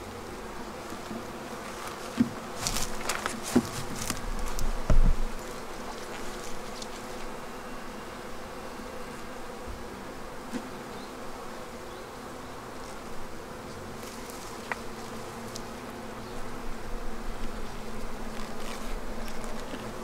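Honeybee colony buzzing in a steady, dense hum from an opened hive full of bees. A few sharp knocks and scrapes come from the wooden frames being handled about two to five seconds in.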